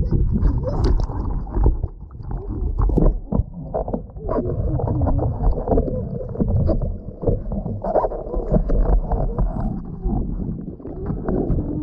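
Pool water splashing and sloshing against a boogie board as a small child clambers onto it, with irregular slaps and knocks. The sound is muffled, as if heard right at the water's surface.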